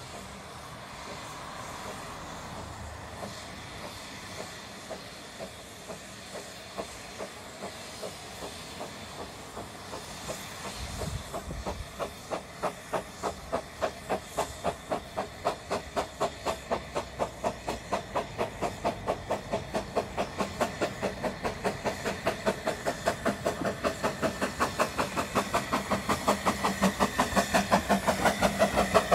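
Narrow-gauge steam tank locomotive working a train: at first a steady hiss of steam, then about a third of the way in its exhaust beats begin, roughly two to three chuffs a second, growing steadily louder as it draws near.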